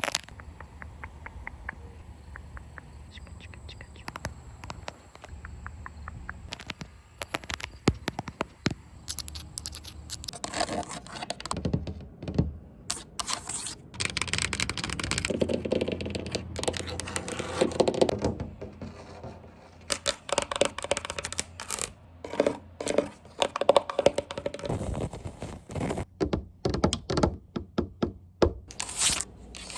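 Rapid light taps on a camera, then from about ten seconds in, tapping and scratching on window glass mixed with close hand-movement sounds, loudest around the middle.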